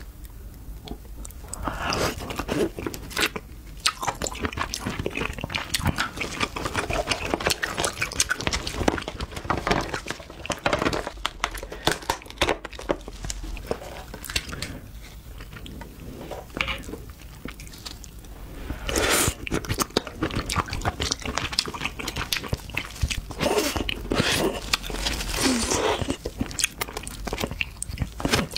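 Close-miked eating of a whole cooked crab: wet chewing and biting of crab meat, mixed with many sharp cracks and crackles as the shell is broken apart by hand.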